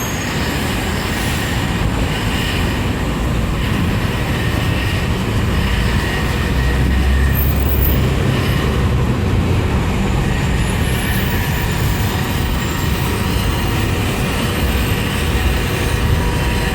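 City bus engine running with a steady low rumble that grows louder for a few seconds about six seconds in.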